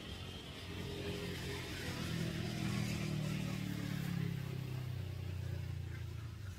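Low engine hum of a motor vehicle, swelling over a few seconds and easing off near the end.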